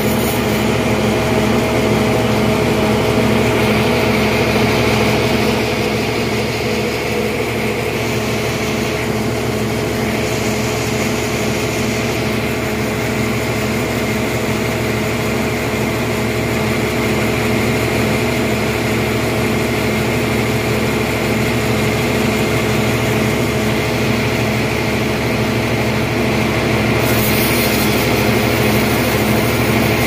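Band sawmill running, its blade cutting lengthwise through a large trembesi (rain tree) log: a steady, loud machine drone with a constant hum.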